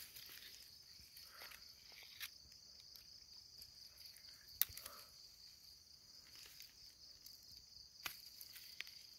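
Steady, faint, high-pitched chorus of crickets chirping at night, with a few sharp clicks and light rustles as plastic mesh frog traps are handled; the loudest click comes about four and a half seconds in.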